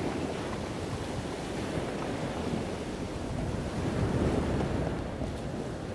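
Wind buffeting the microphone over the wash of open water and small waves, a steady rushing noise with no distinct events.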